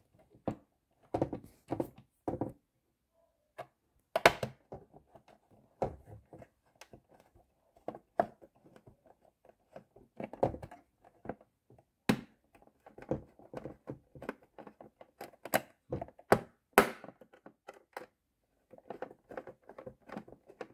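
Small screwdriver turning a screw into the plastic battery-compartment cover of a toy radio-controlled boat, with irregular clicks, taps and knocks of the tool and fingers on the hollow plastic hull.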